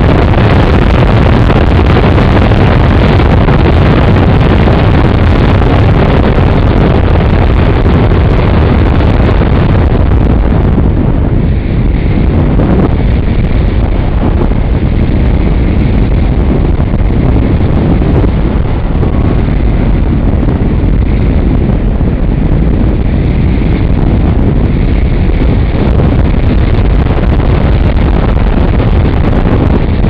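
Wind rushing and buffeting over the microphone of a camera mounted on a fast-flying radio-controlled plane's wing: a loud, steady low rumble.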